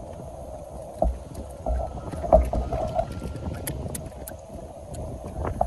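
Water lapping and sloshing against a small boat, with dull knocks about a second in and again around two seconds in, and a few sharp clicks later on.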